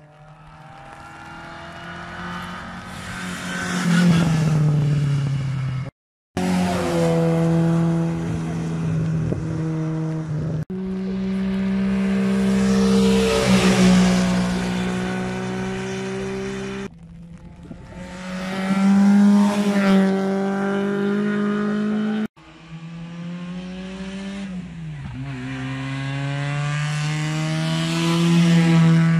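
Rally car engines accelerating hard past the microphone, one car after another, in several short takes that cut off abruptly. Each engine note climbs in pitch and drops back at gear changes or lifts.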